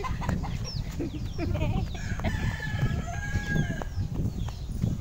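A rooster crows once, one long call starting about two seconds in, with short chirping calls around it. Wind and handling rumble on the phone's microphone runs underneath.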